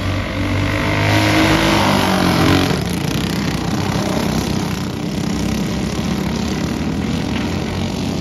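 Engines of several winged dirt-track racing karts at race speed. Louder in the first few seconds, with the pitch sliding as they pass, then running on steadily as they circle the track.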